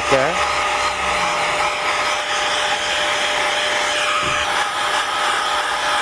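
Jupiter JP-6000 cordless air gun running on its second, highest setting: a steady rush of air with a faint steady motor whine, blowing through its brush nozzle into the pleats of a car air filter.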